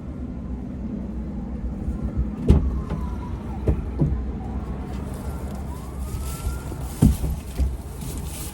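Ford Mustang GT's 5.0 V8 idling with a steady low rumble, heard from inside the stripped-out cabin, with a few short knocks.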